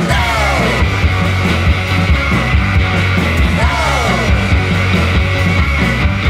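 A rock band playing: a snare drum with electric guitars, one of them a fuzz guitar, and two falling pitch slides, one near the start and one about halfway.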